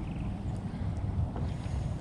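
Low, steady wind rumble on the microphone.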